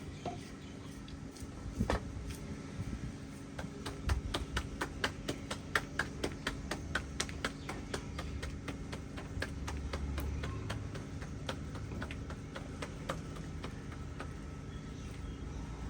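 A rapid series of light taps or clicks, about four or five a second, thinning out after the middle, over a steady low hum.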